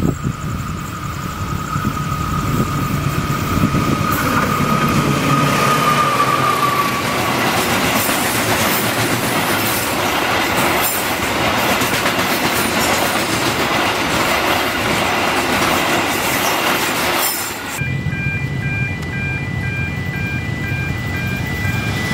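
Container freight train approaching and then passing close by, its wagons rumbling and clattering over the rails, with a high steady tone fading out over the first several seconds. Near the end the sound cuts abruptly to another train approaching, with a repeating ringing tone.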